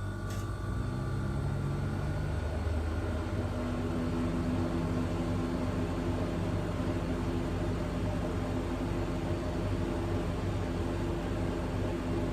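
Steady electric motor hum with a low droning tone that settles to a new pitch about two seconds in.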